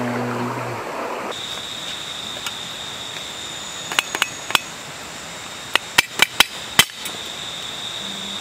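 Knife blade clinking against the metal lid of a cooking pot on a campfire: three sharp taps about four seconds in, then five more a second or two later. A steady high insect drone runs behind, and music fades out in the first second.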